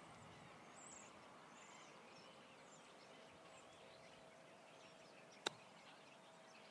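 A single short, sharp strike about five and a half seconds in: a golf club chipping a ball out of thick rough, the club hitting into the grass about an inch behind the ball. Around it, faint bird chirps over near-silent open-air quiet.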